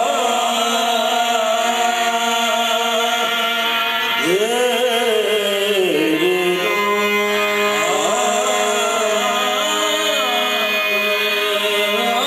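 Qawwali: a male qawwal singing long, ornamented phrases that slide up and down in pitch, over steady held harmonium tones.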